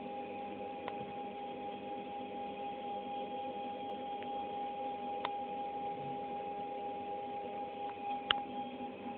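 Stepper motors of a homemade CNC router driving an axis at constant speed: a steady high whine over lower hums, with three sharp ticks along the way.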